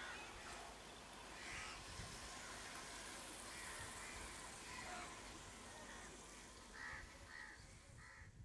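Crows cawing, faint, in scattered single calls with a quick run of calls near the end, over a steady outdoor hiss.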